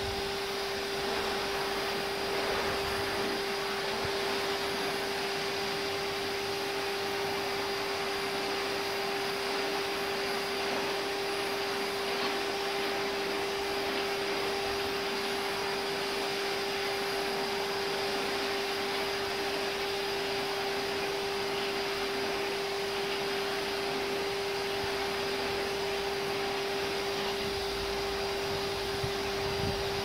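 Numatic George wet-and-dry vacuum running steadily, its motor whine holding one constant pitch over the rush of the suction air, as its floor tool is worked over artificial grass.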